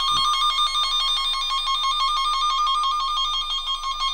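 A VDIAGTOOL V200 Pro circuit break finder sounds a steady, rapid two-pitch electronic warble. This is its audible signal indicator as it picks up the radio-frequency signal sent down the wire by the kit's power probe, and it means a good signal along the intact wire.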